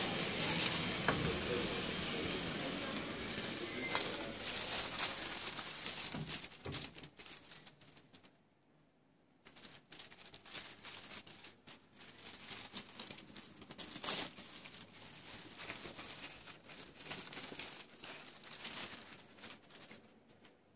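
Rustling and crackling handling noise from a phone being carried and turned, with a short quiet gap about eight seconds in and scattered small clicks afterwards.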